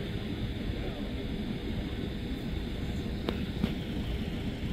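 Jet airliner engines running steadily: a rumble with a high whine above it. Two sharp clicks come about three seconds in.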